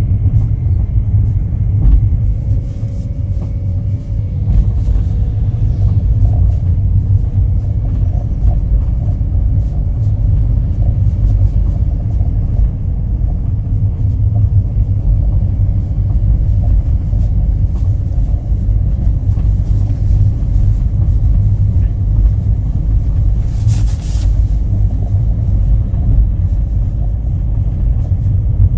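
Kia Ray's three-cylinder engine running with a loud, steady low rumble. This is the abnormal noise that has appeared in cold weather at 338,000 km. It fades once the car warms up, and the owner fears the engine may stall.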